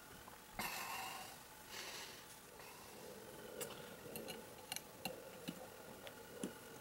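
Faint handling noise of Colt Single Action Army revolver parts: a brief rustle about half a second in, then a scatter of small, sharp metallic clicks and taps.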